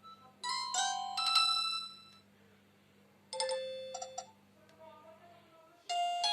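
Alcatel One Touch 2007D mobile phone playing short electronic alert tones through its loudspeaker. There are two brief chimes of a few notes each, about three seconds apart, and then a longer, busier ringtone melody starts near the end.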